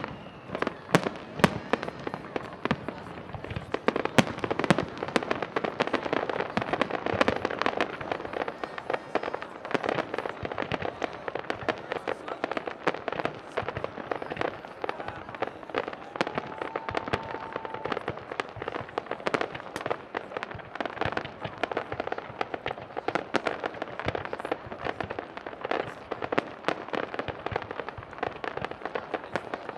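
Fireworks display: a dense, continuous barrage of bangs and crackling shell bursts, the loudest bangs in the first few seconds.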